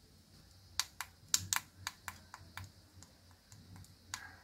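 A series of light, irregular plastic clicks and taps, about seven in all, from handling a cordless soldering iron and its bit against a hard plastic carry case.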